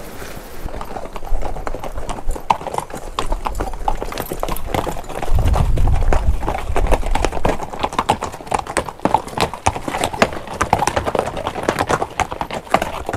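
Hooves of a string of pack mules clip-clopping over a rocky dirt trail, many uneven overlapping strikes starting about a second in. A low rumble joins for a second or two midway.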